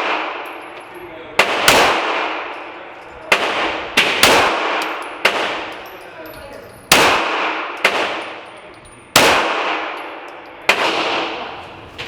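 Glock 17 9mm pistol firing about ten single shots at an uneven pace, roughly one every second or so. Each shot rings out in the long echo of an indoor range.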